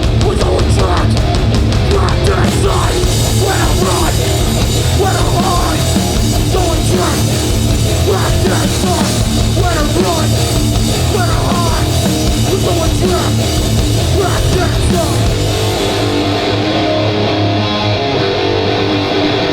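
Hardcore punk band playing live at full volume, loud and continuous. From about three-quarters of the way through, the cymbal sizzle and the deepest bass drop away.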